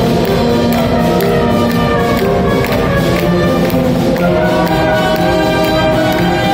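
School wind band playing: clarinets and other woodwinds with brass in sustained chords over a steady beat.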